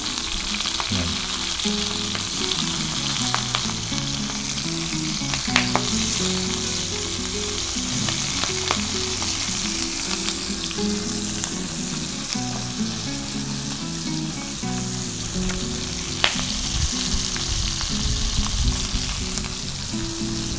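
Shell-on shrimp frying in hot olive oil in a skillet: a steady sizzle, with a few sharp clicks.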